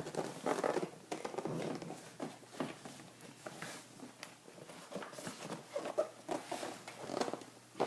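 Scattered light knocks, scrapes and rustles of cardboard packaging being handled and pulled at while a wall clock is worked out of its box.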